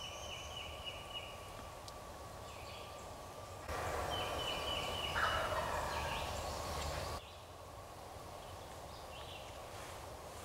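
Wild turkey gobbler gobbling, a rapid rattling series of notes, twice: once at the start and again about four seconds in.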